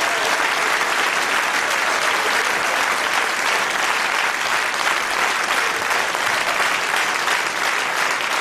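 Live audience applauding steadily at the end of a comedy sketch: dense, even clapping.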